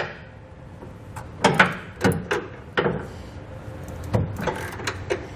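Digital torque wrench ratcheting in a series of short, irregular strokes as the air-spring bracket bolt is drawn up to its specified torque.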